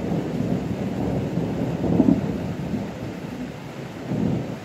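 A long roll of thunder, loudest about two seconds in, swelling once more near the end and then dying away, with rain falling steadily under it.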